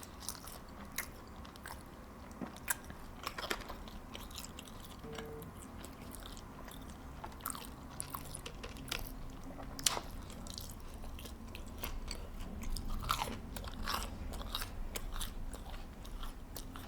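A person chewing and biting food close to the microphone, with crunching and many short, irregular mouth clicks.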